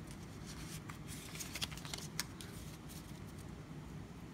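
Pokémon trading cards being shuffled through by hand, sliding against one another, with a quick run of short card snaps and clicks about halfway through.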